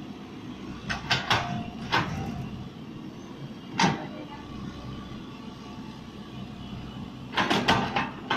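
Hydraulic excavator's diesel engine running steadily, with sharp knocks from the digging work: a quick cluster about a second in, single knocks near two and four seconds, and another cluster near the end.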